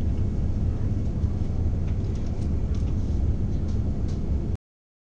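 Steady low drone of an airliner cabin in flight: engine and air noise heard from inside the plane. It cuts off abruptly near the end.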